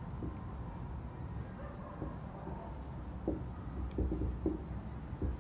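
An insect chirping in a steady, evenly pulsed high trill, with a few faint scratches of a marker writing on a whiteboard.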